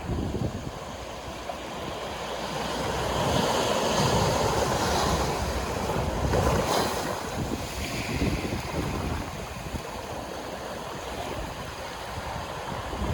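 Sea waves breaking and washing on the shore, swelling in the middle and easing off, with wind buffeting the microphone in low rumbles.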